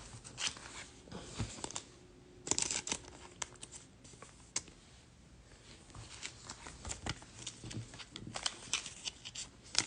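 Soft, scattered clicks and rustling of trading cards and pack wrappers being handled and shuffled, with a brief busier flurry a few seconds in.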